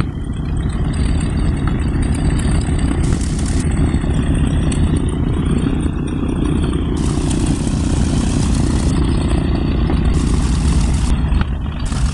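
Piston engines of a World War II twin-engine bomber running as it taxis past, a loud steady low rumble.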